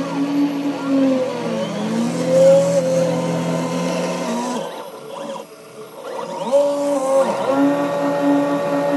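Home-built CNC mill cutting aluminium: the router spindle's steady whine under the stepper motors' tones sweeping up and down as the axes speed up and slow down. The sound dips to a quieter lull about five seconds in, then the steady whine comes back.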